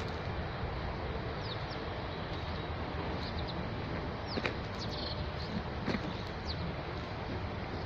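A few short, high, downward-sliding bird chirps over a steady rushing background noise.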